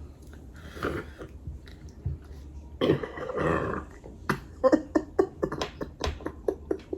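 A woman burping from gulped carbonated soda, with a long burp about three seconds in. It is followed by a quick run of about a dozen short sharp sounds, roughly three or four a second.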